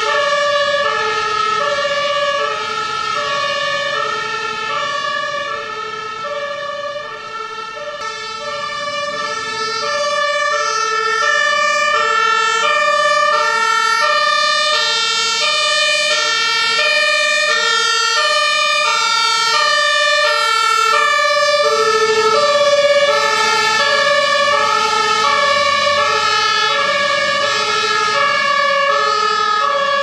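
German fire engines' two-tone sirens (Martinshorn) sounding, the pitch stepping back and forth between two notes as the trucks leave on an emergency run. The siren dips in loudness briefly about a quarter of the way through, then comes back just as strongly.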